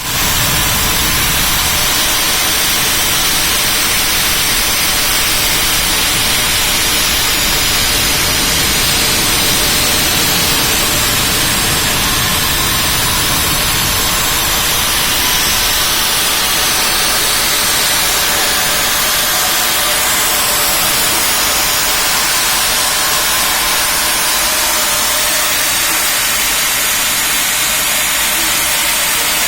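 CNC milling machine running: a loud, steady hiss with faint wavering high tones.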